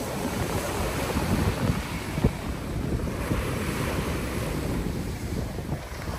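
Surf breaking and washing up the sand in a continuous rush, with wind buffeting the microphone in a rumbling, gusty low end.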